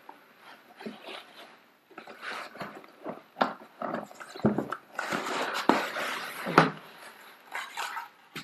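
Plastic bag padding and cardboard packing rustling and scraping as hands dig through a shipping box, in irregular crackles and knocks that grow dense and loudest past the middle, with a sharp knock just before the end.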